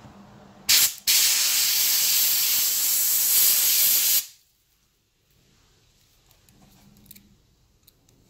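Compressed-air gun blasting carbon deposits off a soaked engine intake valve: a brief burst, then a steady loud hiss lasting about three seconds that cuts off suddenly.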